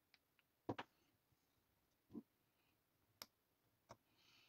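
A few faint, separate clicks and knocks of small metal tools and parts being set down and handled on a workbench. The loudest is a quick double knock about three-quarters of a second in.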